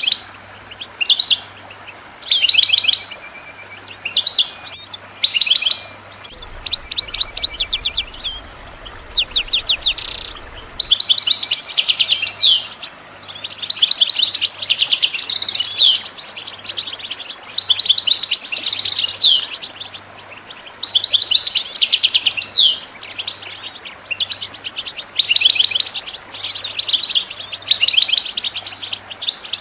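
European goldfinch song: rapid twittering trills and buzzy notes, delivered in phrases of one to two seconds with short pauses between them.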